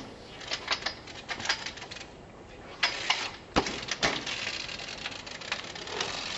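Trials bike hopping on top of a wall with scattered taps and clicks, then one heavy thud about three and a half seconds in as it drops off the wall and lands on the ground below. After the landing comes dense rapid ticking as the bike rolls away.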